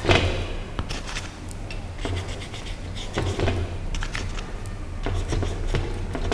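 Paintbrush strokes scratching and rubbing on a painting on an easel, as black paint is worked densely into the rocks, in short irregular strokes with the loudest just after the start. A steady low hum lies underneath.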